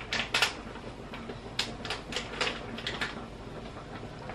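Small spice jar shaken and tapped over a dish: a run of sharp, irregular clicks and taps, about eight in all.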